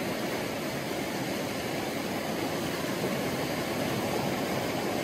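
Steady rush of flowing creek water, an even noise with no distinct events.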